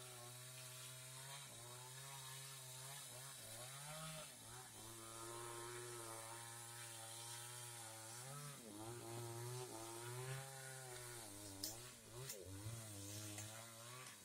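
Engine-driven saw cutting teak wood, the engine running steadily and its pitch dipping and recovering several times as the blade takes load in the cut.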